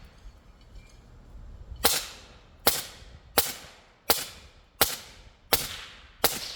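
Suppressed 300 Blackout rifle (PSA Jakl with a Rugged Alaskan 360 suppressor) firing subsonic 209-grain rounds: seven shots in a quick, even string about 0.7 s apart, starting about 2 s in, each with a short fading tail. The steady string shows the rifle cycling with its adjustable gas block opened up a setting.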